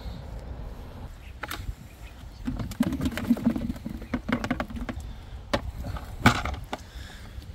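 Wind rumbling on the microphone, with scattered clicks and knocks and a muffled low hum that flickers for about two seconds near the middle.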